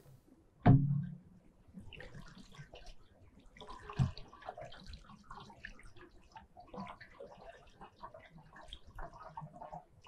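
Water from a plastic wash bottle splashing and trickling over an upturned sieve's mesh, rinsing the last soil particles off it; light, irregular splashing, with a short bump about a second in and a knock about four seconds in.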